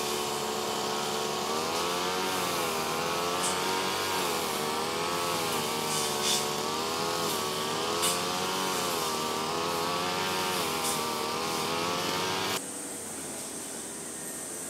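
A small engine running with its pitch wavering slowly up and down. It cuts off abruptly about three quarters of the way through, leaving a steady hiss.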